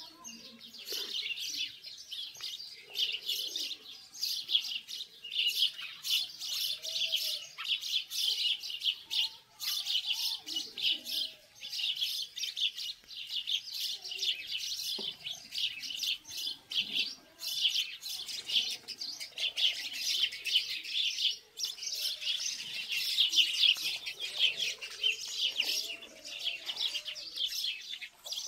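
Many small birds chirping rapidly and without pause, a dense, high-pitched chatter.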